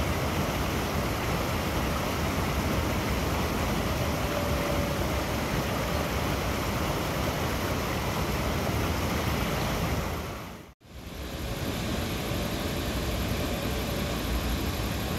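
Steady rushing noise of trams and street traffic, with a faint whine coming and going. The sound fades out to silence and straight back in about eleven seconds in, at a cut between recordings.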